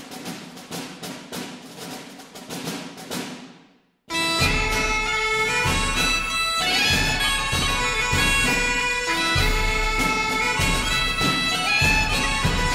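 Background music: a run of drum strikes, then, after a brief break about four seconds in, a bagpipe tune over a steady drone.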